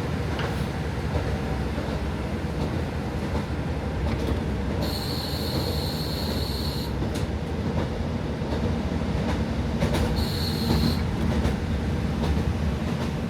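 Inside a KiHa 40 diesel railcar under way: a steady low rumble of engine and wheels on the rails. A high squeal comes in about five seconds in for two seconds, and again briefly near ten seconds.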